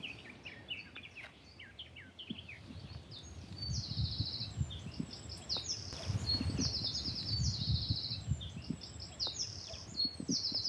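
Small songbirds singing and chirping outdoors, with quick high trills repeating from about a third of the way in, over low rumbling.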